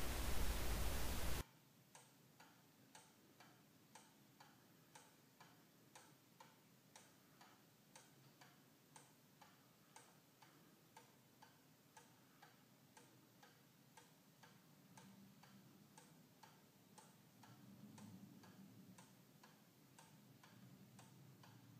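Pendulum clock ticking steadily and faintly, about two ticks a second. A short hiss cuts off about a second and a half in.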